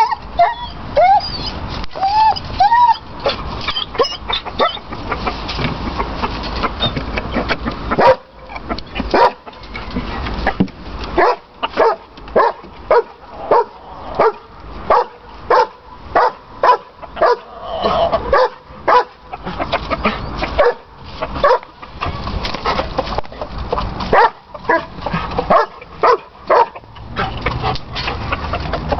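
An animal calling over and over: a few short calls that rise and fall, then a long run of short, sharp calls at about one and a half a second, which stops a couple of seconds before the end.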